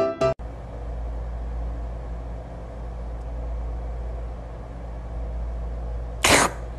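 Steady low room hum, then about six seconds in a short, loud burst of breath like a sneeze.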